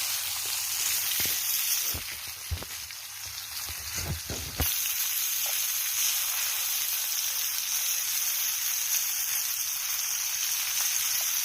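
Floured fish frying in hot oil in a pan, with a steady sizzle. A few soft knocks come between about two and four and a half seconds in, while the sizzle dips.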